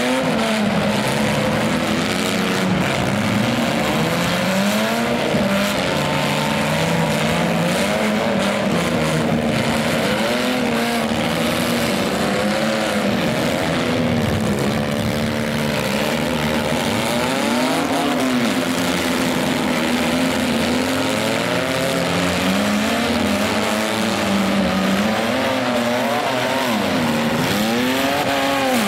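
Engines of several demolition-derby minivans revving up and falling back over and over, overlapping one another, as the vans drive and ram each other in the dirt arena.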